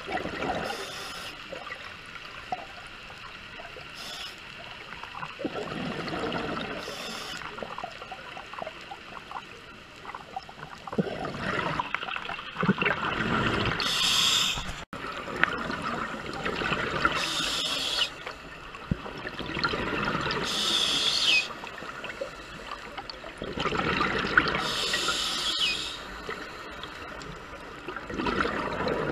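Scuba diver breathing through a regulator underwater: a hiss on each inhale, then a rush of exhaled bubbles, repeating every three to four seconds.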